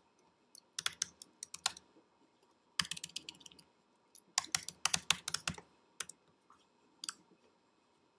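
Typing on a computer keyboard: several quick bursts of key clicks, then a couple of single key presses near the end.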